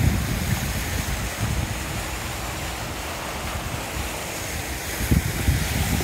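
Steady splashing hiss of a pond fountain's jet falling onto the water, with wind buffeting the microphone in gusts, strongest at the start and again about five seconds in.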